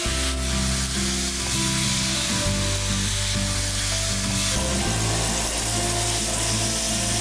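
Duck breasts sizzling skin-side down in a frying pan over medium heat as the fat renders out of the scored skin: a steady frying hiss, with background music of held notes underneath.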